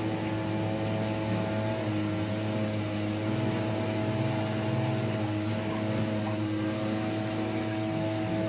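Steady machine hum: a low drone with a few fixed tones above it, unchanging throughout, like a motor or fan running.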